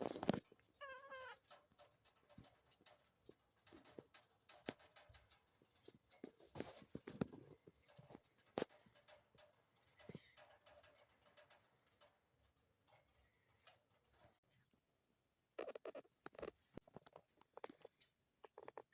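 Munchkin cat giving one short, squeaky vocal sound with a wavering pitch about a second in. Faint rustles and clicks follow, with near silence between them.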